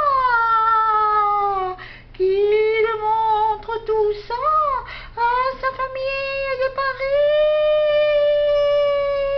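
A high, thin voice singing wordless held notes, swooping up and down. It breaks off twice, then holds one long note that rises slightly and slowly falls.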